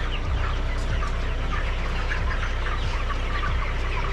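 A crowded flock of chickens clucking and peeping without a break, many short calls overlapping: the birds are worked up while being herded.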